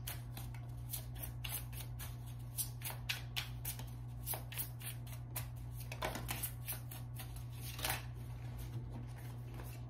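A deck of tarot cards being shuffled by hand, packets slid from one hand to the other, giving a continuous run of soft card flicks and slaps, several a second.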